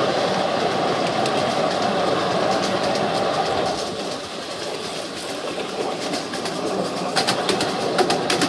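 Ride-on miniature railway train rolling along its track, its wheels giving a steady rumble that eases off about four seconds in. Near the end come a quick run of clickety-clack clicks from the wheels.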